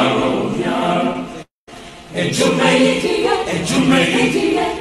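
A group of voices chanting together without instruments. The sound cuts out completely for a moment about one and a half seconds in, then comes back.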